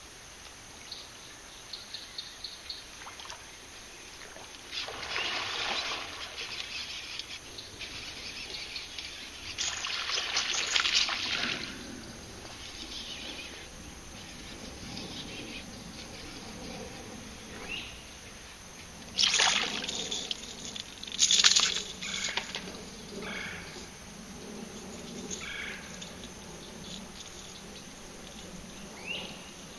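Water splashing in several short bursts, the loudest a pair about two-thirds of the way through, with a few short rising bird chirps.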